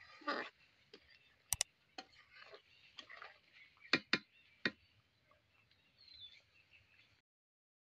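Long metal spatula stirring thick ghugni in a steel kadai, with a scrape just after the start and a few sharp clinks of metal on the pan, a pair around one and a half seconds in and three close together about four seconds in.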